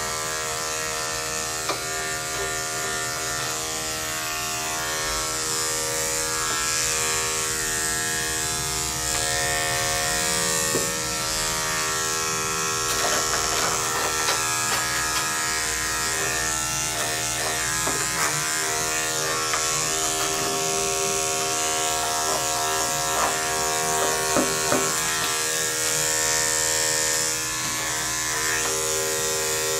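Corded electric dog grooming clippers buzzing steadily as they clip a dog's coat, with a few light clicks scattered through.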